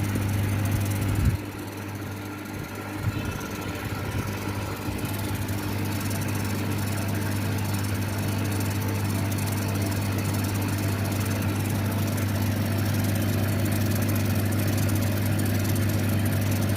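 CO2 laser cutting machine running a test engrave-and-cut job: a low, steady hum from its motors and fans. The level drops suddenly a little over a second in, then builds back up gradually.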